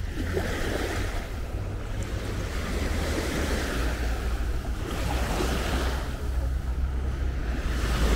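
Small waves washing up on a sandy shore, the surf swelling and fading every few seconds, with a low wind rumble on the microphone.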